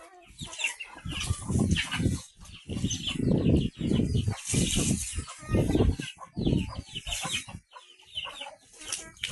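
Chickens clucking in short, repeated calls, with loud low rumbling thumps coming and going through the middle of the stretch.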